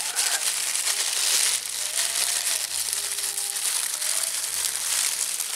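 Thin clear plastic bag crinkling and rustling continuously as hands work at a fish held inside it, freeing the hook.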